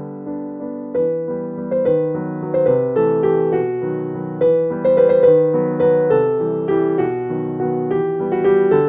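Background piano music: a gentle melody of single notes over held chords.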